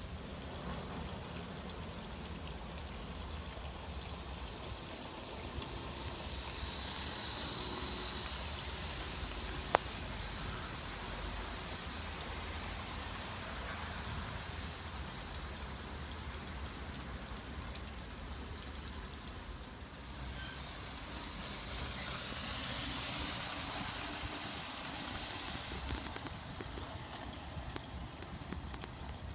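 Model train rolling along garden railway track: a steady hiss of wheels on rail that swells twice as the train passes close, over a low background hum, with one sharp click about ten seconds in.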